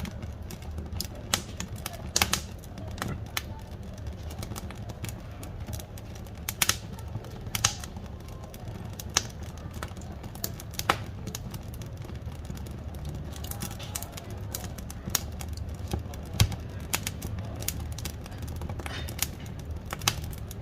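Firewood burning in a wood-burning cookstove, crackling with irregular sharp pops over a low, steady rumble of the flames.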